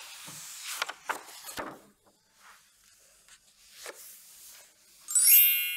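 A paper page of a book being turned: a rustle with a few sharp crackles, then a softer rustle. Near the end a bright chime rings out and fades.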